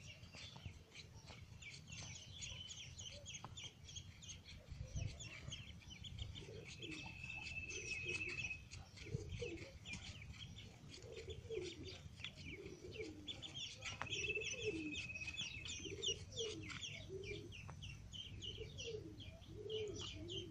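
A brood of ducklings peeping, a rapid stream of short high peeps, with a longer drawn-out high note twice. From about six seconds in, a lower-pitched bird call repeats about once a second under the peeping.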